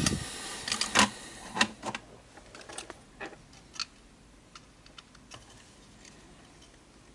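Irregular small clicks and taps of plastic and metal as the Sony Video Walkman's circuit boards and flex-cable connectors are handled and pressed into place, with a short rustle at the start and the loudest click about a second in. The clicks thin out after about four seconds.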